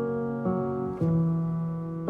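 Soft background piano music, a gentle melody with a note struck about every half second.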